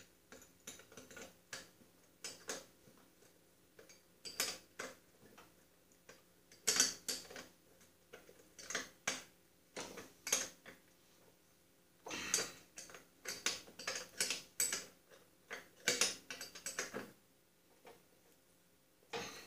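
Light metal clicks and clinks in scattered short clusters as a lawn tractor's rear wheel hub hardware is fitted onto the axle by hand and with pliers.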